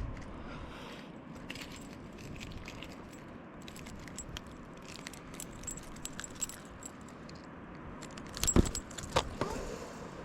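Light metallic clinking and jingling of a spinner lure and its hook while a caught northern pike is unhooked, with two louder knocks near the end.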